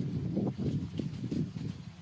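A pet animal making low, irregular rumbling noises while playing.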